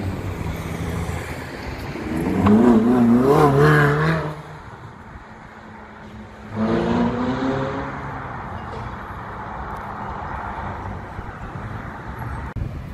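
Ferrari sports car accelerating hard: the engine note climbs, wavering upward for about two seconds before cutting off, then a second sudden burst of revs about halfway through fades away as the car drives off.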